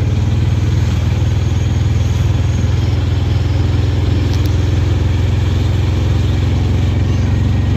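Auto-rickshaw engine running steadily while the vehicle cruises, heard from inside the passenger compartment, with a constant low drone and road noise.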